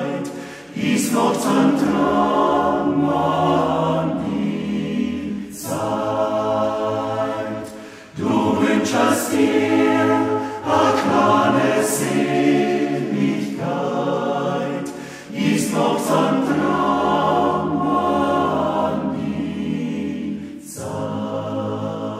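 Men's voice choir singing in several-part harmony without accompaniment, in long sustained phrases separated by short pauses for breath.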